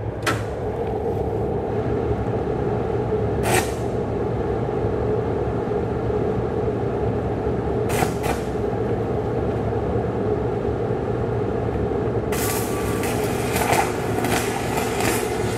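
A 3/4-inch Coromat F25 stick electrode arc welding at about 1,000 amps: short crackling bursts about three times, then near the end the arc burns steadily with a continuous crackling hiss. Under it runs a steady machinery drone from the shop's fume extractors and welding power supply.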